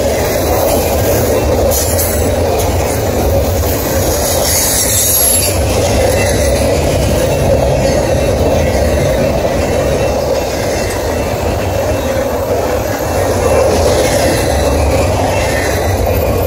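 Double-stack container freight train's well cars rolling past at close range: a steady, continuous noise of steel wheels running on the rails.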